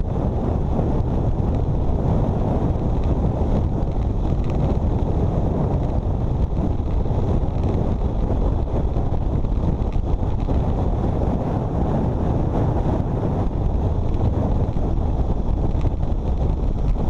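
Storm-force wind buffeting the microphone on a moving motorcycle, a dense low rumble that flutters rapidly without letting up.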